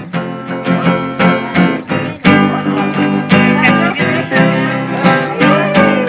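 Steel-string acoustic guitar strummed rhythmically, playing an instrumental passage of a Brazilian sertanejo song with frequent chord strokes.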